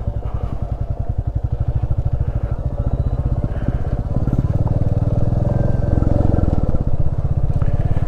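Motorcycle engine running with a steady, even beat as the bike is ridden. It grows louder and heavier about four seconds in as the throttle opens, then eases a little near the end.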